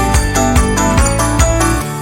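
Background music with a steady beat of about four strokes a second and bright, bell-like notes over a bass line; the beat and bass drop out near the end.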